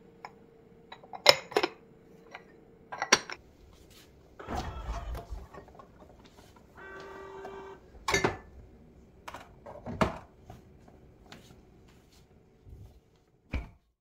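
Spice containers being handled and set down: a series of sharp clicks and knocks, with a rustle about four and a half seconds in and a short squeak about seven seconds in.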